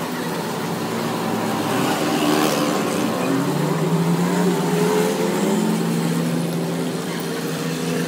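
An engine running steadily, its pitch stepping up about three and a half seconds in and settling lower again near the end.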